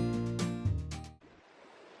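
Background music with strummed acoustic guitar and a steady bass, cutting off suddenly just over a second in, followed by faint hiss.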